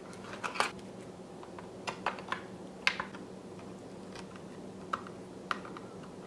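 Small, scattered clicks and taps, about eight in all, as fingers and a screwdriver seat an mSATA SSD card in the ThinkPad T430's mSATA slot. A low, steady hum runs underneath.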